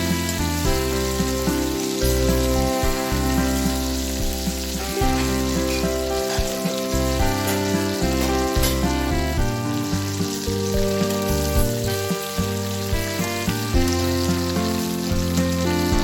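Instrumental background music with held notes and a moving bass line, over food sizzling as it fries in hot oil.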